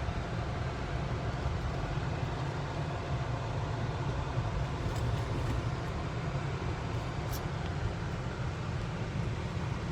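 Steady low rumble of a car moving at low speed, with road and engine noise and no other sound standing out.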